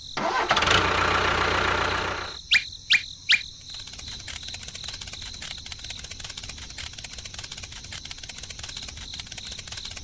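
A loud rush of engine-like noise for about two seconds, then three quick rising chirps, then a small motor running steadily with a fast, even clatter.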